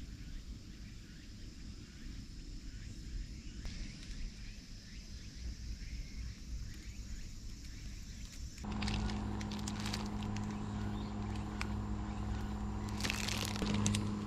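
Outdoor ambience with a low rumble and faint repeated chirps. About nine seconds in it switches to the steady hum of a portable electric fan, with plastic bag crinkling near the end.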